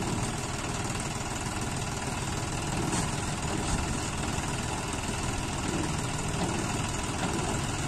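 John Deere tractor's diesel engine running steadily while pulling a tipping trolley whose bed is raised.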